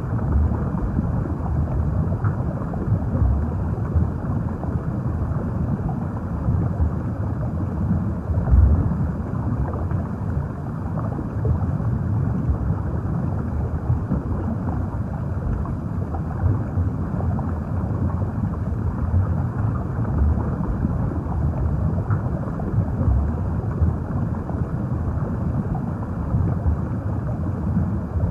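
Underwater ambience: a steady, muffled low rumble of moving water, with small swells in the low range throughout.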